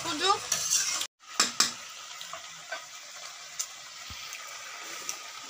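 Kadaknath chicken and potatoes frying dry in a kadai, a steady sizzle with small scattered ticks, after the earlier water has cooked off and before fresh water goes in. A couple of sharp clicks of the metal spatula against the pan about a second and a half in.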